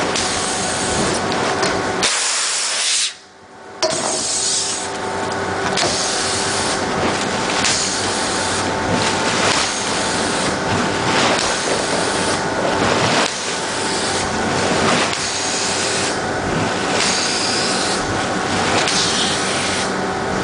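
Pulsair air-mixing probe firing compressed air into a tank of fermenting red wine must: bubbles burst through the grape-skin cap with splashing and a steady rush of air, surging about once a second. The sound drops out for under a second about three seconds in.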